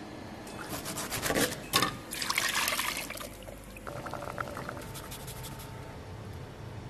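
Liquid splashing and pouring into stainless steel containers: fruit juice squeezed from a halved orange into a steel bowl. It is loud and busy for the first three seconds or so, then quieter.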